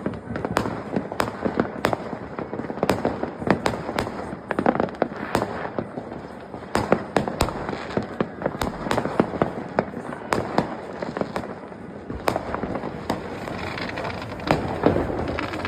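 New Year's Eve fireworks and firecrackers going off all around: many sharp bangs, several a second at times, over a continuous crackling, rumbling wash of distant explosions.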